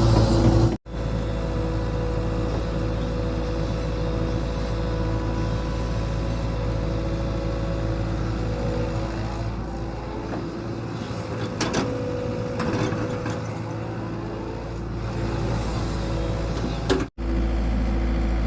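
Excavator engine running steadily, with a few sharp clanks about two-thirds of the way through. The sound drops out abruptly for a split second near the start and again near the end.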